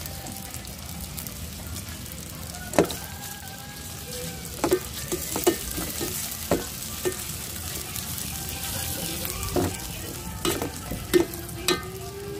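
Cubes of pork sizzling in hot fat in a metal pot while a metal spoon stirs them, knocking and scraping against the pot about ten times.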